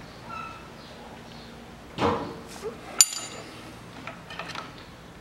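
Metal wrench and tools clinking against the engine while bolts in the timing-belt area are tightened: a short rattling clatter about two seconds in, a sharp ringing clink a second later, then a few light ticks.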